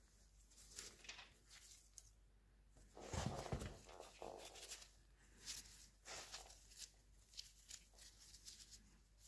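Faint clicks and scrapes of a hex key working a small set screw in the graduated dial collar of a milling machine's handwheel shaft, with a brief louder bump and rustle of handling about three seconds in.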